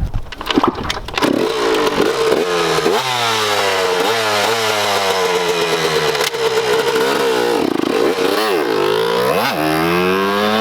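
A 1996 Yamaha YZ125 two-stroke dirt bike with a Pro Circuit exhaust being ridden hard, its engine note rising and falling in pitch several times as the throttle is worked. The riders say the bike has a bog when taking off, which they wonder may be down to a carburettor that needs cleaning.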